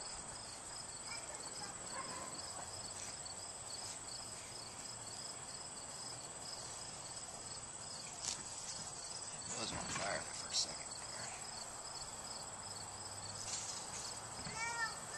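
Insects chirping steadily: a high continuous trill with a regular pulsing chirp running alongside it, and a brief breathy rush about ten seconds in.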